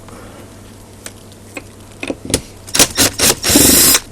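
Metal parts of an antenna rotator being worked loose and handled during removal of the brake drum: a few sharp clicks and knocks, then two louder bursts of noise, each about half a second long, near the end.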